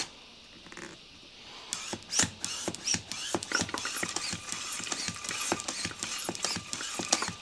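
Hand-operated plastic oil extractor pump being worked by its plunger, with rapid irregular clicking and squeaking from about two seconds in, as it draws the last of the used oil from a Briggs & Stratton mower engine's crankcase.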